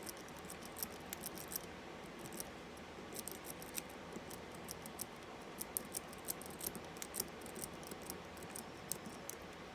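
Lock pick and tension wrench working in the keyway of an Abus 64TI 30mm padlock: a run of small, irregular metal clicks and scrapes as the pins are raked, with a short lull about two seconds in.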